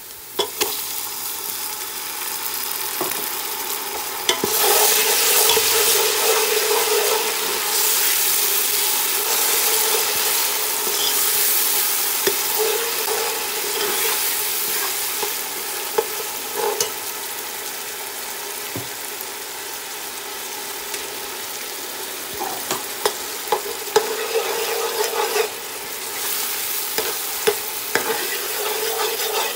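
Chopped onion, garlic, chillies and tomato frying in oil in a stainless steel pot, sizzling steadily while a metal spoon stirs them, clinking and scraping against the pot now and then.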